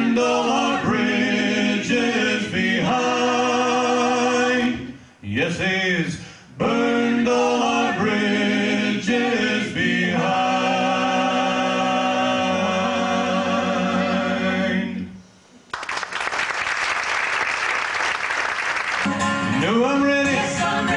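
Four voices singing in close harmony with acoustic guitar, ending on a long held chord about fifteen seconds in. Audience applause follows for about three seconds, then voices and guitar start up again near the end.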